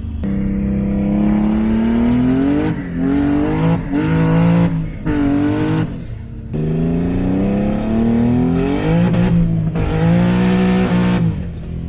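Homemade twin-turbo Infiniti G37's 3.7-litre V6, heard from inside the cabin, revving hard under acceleration. It climbs in pitch twice over a couple of seconds, and after each climb comes a run of sudden cuts and drops in pitch, with a short hiss at several of the breaks.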